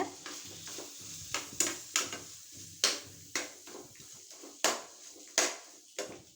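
Kitchen utensils and pots clinking and knocking, about eight sharp strikes scattered a second or so apart.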